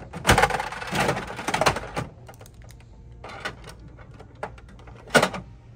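Bandai gachapon capsule machine being worked by hand: a run of ratcheting clicks and plastic rattles over the first two seconds as the dial is turned, then scattered clicks and one loud plastic clack about five seconds in as the hand reaches into the capsule chute.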